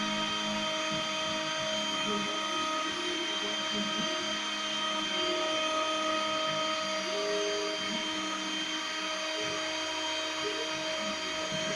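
CNC milling machine cutting a printed circuit board: the small high-speed spindle runs with a steady whine, over lower motor tones that shift in pitch and start and stop every second or so.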